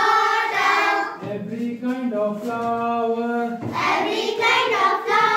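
A group of children singing a rhyme together in unison, a line of held, sung notes.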